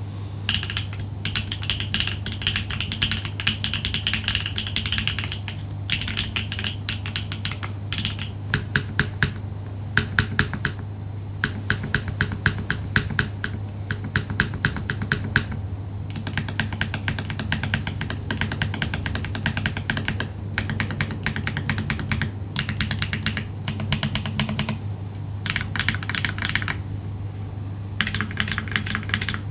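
Typing on a Neo80 mechanical keyboard with HMX Ice Lotus tactile switches on a POM plate, built foamless: quick runs of keystrokes in bursts of a few seconds with short pauses between. A steady low hum lies underneath.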